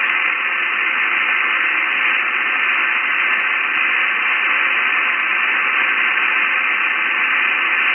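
Icom IC-7610 transceiver receiving 40-metre lower sideband: a steady hiss of band noise, cut off sharply at about 3 kHz by the receive filter. The calling station has faded into the noise and can't be copied.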